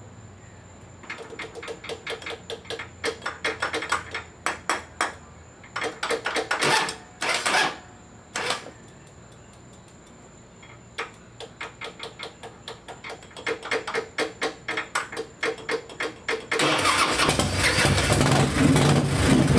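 Run of quick clicks, about three a second, from a sticking starter relay being tapped to get it to engage, with a few longer, louder bursts in the middle. About sixteen seconds in, the Harley-Davidson V-twin catches and runs steadily.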